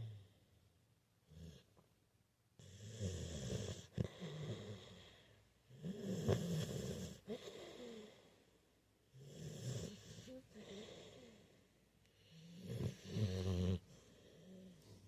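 Sleeping dog snoring: four long snores about three and a half seconds apart, with quiet breaths in between.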